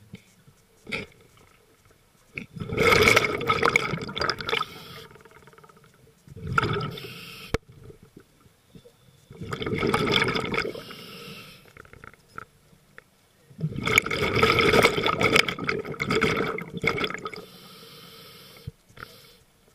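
Scuba diver breathing through a regulator underwater: four loud rushes of exhaled bubbles, about every four to five seconds, the last the longest, with a quieter hiss between them.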